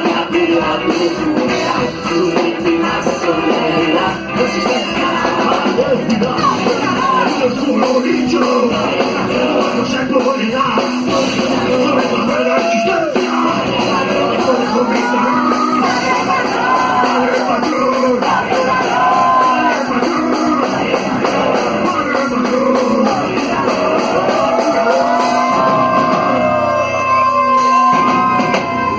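Rock band playing a song live, with shouted singing over guitars and drums.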